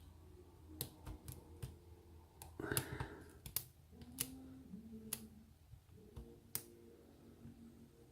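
Lock pick working the pins of a pin-tumbler lock: a scattered series of light, sharp metallic clicks and ticks from the pick and pins, clustered in the middle of the stretch.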